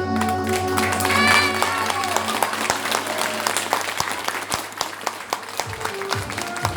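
The last held chord of a song's backing music dies away about two seconds in, while an audience applauds.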